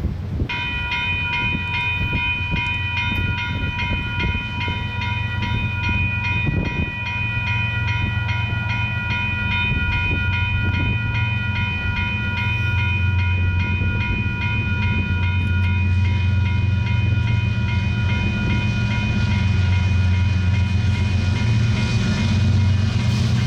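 Railroad grade-crossing bell ringing in steady, rapid strokes, starting about half a second in, over the low rumble of an approaching train that grows slowly louder.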